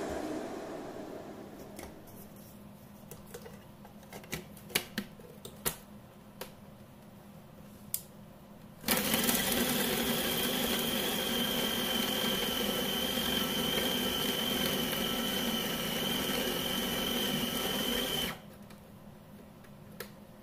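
Electric food processor grinding raw chicken with breadcrumbs: the motor starts abruptly about nine seconds in, runs steadily with a high whine for about nine seconds, then cuts off suddenly. Before it, a few sharp plastic clicks as the bowl and lid are fitted.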